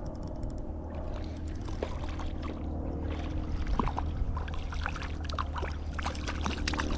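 River water running and trickling, with small splashes and ticks now and then and a steady low rumble underneath.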